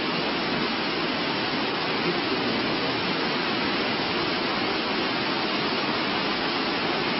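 A steady, even rushing noise with no distinct events or tones in it.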